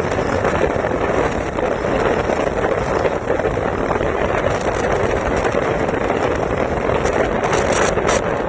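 Steady wind rushing over the microphone of a phone carried on a moving motorcycle, with a few brief crackles near the end.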